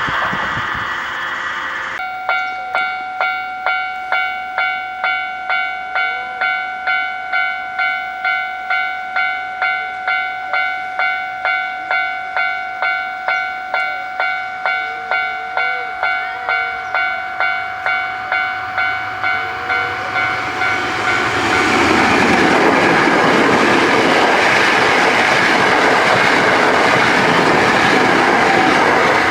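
Japanese level-crossing warning bell ringing, starting about two seconds in: an electronic ding repeated steadily just under twice a second. About twenty seconds in, a Hankyu train arrives and passes over the crossing with a loud, steady rush of wheel and track noise, the bell still sounding underneath.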